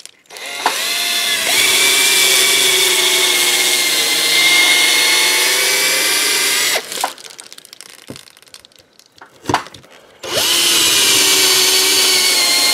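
Craftsman cordless drill boring pilot holes through drywall into a wooden stud for lag bolts: the motor winds up with a rising whine and runs steadily for about six seconds, stops, gives a short blip or two, then runs steadily again near the end.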